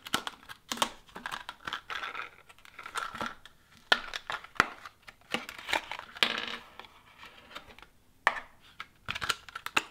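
Cardboard-and-plastic blister pack being peeled and torn open by hand, crinkling and crackling irregularly, with a few sharp clicks. A small CR1/3N lithium button-type battery is set down on a hard tabletop.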